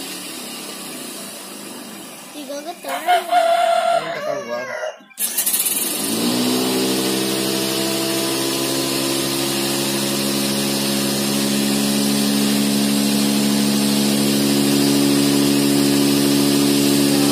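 Cotton candy machine running: a steady motor hum of several even tones over a hiss, rising slightly as it settles in about six seconds in. Before that, after a brief cutout, a rooster crows a few seconds in.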